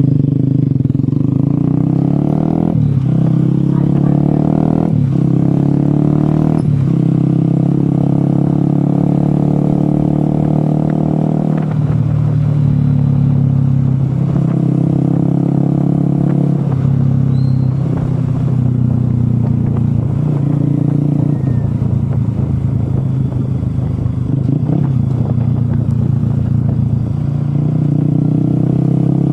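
Motorcycle engine running under way, its pitch stepping up and down several times.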